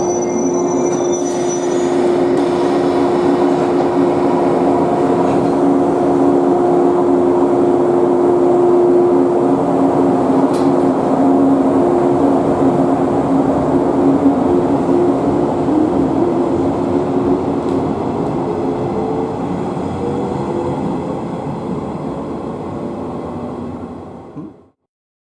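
JR West 117 series electric train pulling out of the platform: a steady hum and rolling rumble as the cars go past, with a motor whine that slowly rises in pitch as the train gathers speed. The sound grows louder early on, then fades as the train draws away, and cuts off abruptly near the end.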